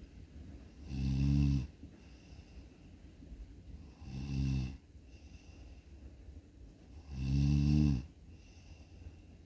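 A sleeping person snoring: three low, buzzing snores, each just under a second long and about three seconds apart, with faint breathing between them.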